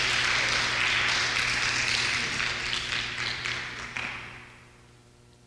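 Congregation applauding, clapping hands, dying away about four seconds in to a faint steady hum.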